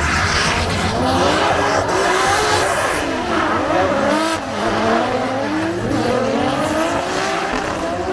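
Drift cars on a track, engines revving up and down in repeated swells over tyre squeal.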